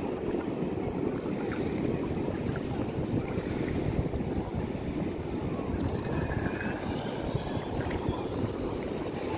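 Steady wind rumble on the microphone and shallow sea water washing. About six to seven seconds in, the faint rising whine of a Vector SR80 Pro RC speedboat's electric motor comes through as the boat speeds up.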